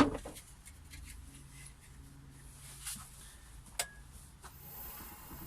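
A sharp knock, then a few light clicks over a low hum. About four and a half seconds in, the Holzmann D460FXL wood lathe starts up and runs steadily with a faint high whine.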